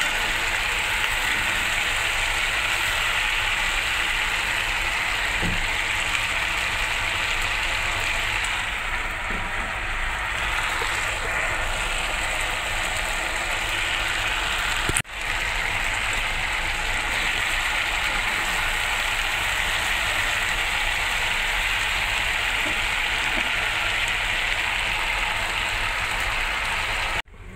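Beef and vegetables sizzling steadily in a hot frying pan as they are stir-fried, with a single sharp click about halfway through.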